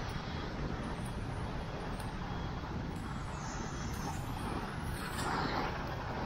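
City street traffic: a steady rumble of vehicles, with one passing closer and louder about five seconds in.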